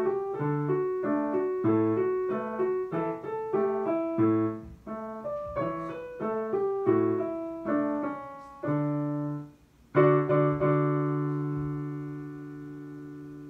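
Digital piano playing a two-handed beginner's lesson-book piece, melody over bass notes. It breaks off briefly about nine and a half seconds in, then ends on a final chord that is held and fades away.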